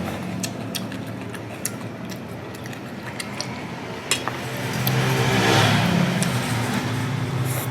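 A motor vehicle's engine hum swells and fades as it passes, loudest just past the middle. Scattered sharp clicks sound throughout.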